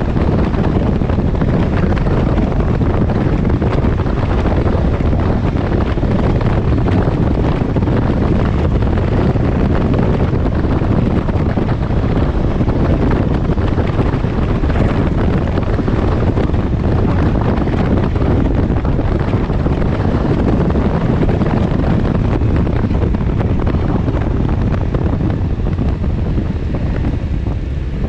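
Wind buffeting the microphone over the road and engine noise of a Can-Am Ryker Rally three-wheeler cruising at about 40 mph, a loud, steady rush. It eases slightly near the end as the trike slows.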